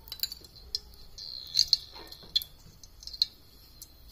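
Oil heating in a hot aluminium kadhai, giving irregular sharp ticks and small crackles with a brief faint sizzle about a second and a half in.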